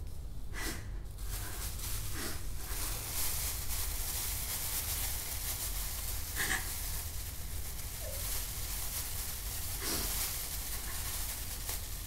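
A woman crying without words: a few short sobs and whimpers several seconds apart over a steady hiss.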